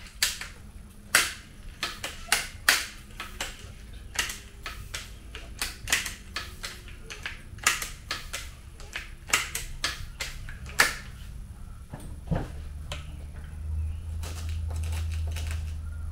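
Seneca Dragonfly Mk2 multi-pump pneumatic air rifle being pumped up, its pump lever and action giving a string of irregular sharp clicks and clacks. The clicking stops at about eleven seconds, and a steady low hum comes in a couple of seconds later.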